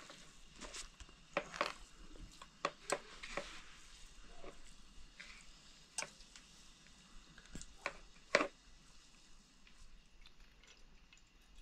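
Irregular light clicks and knocks of objects being handled, with a sharper knock about eight seconds in.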